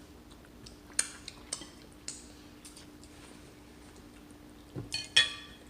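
Utensils and dishes clinking and tapping during a meal: a few sharp clicks about a second in, then a louder cluster ending in a short ringing clink near the end.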